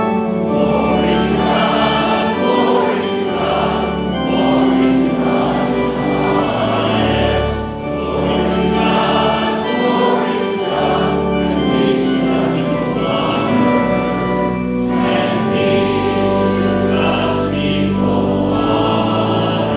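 Congregation singing a hymn together with instrumental accompaniment, the voices over long-held bass notes.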